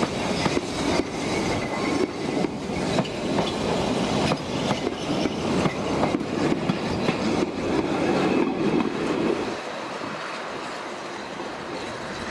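Narrow-gauge vintage passenger carriages rolling slowly past, their wheels clattering and knocking over the rail joints. The clatter drops away about nine or ten seconds in, leaving a quieter steady noise.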